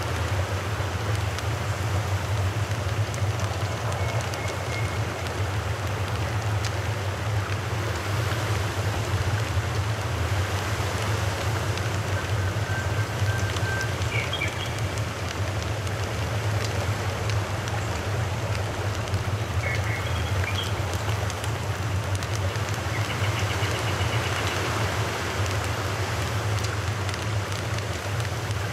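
Steady rushing outdoor background noise with a constant low hum under it, and a few short high bird chirps scattered through it.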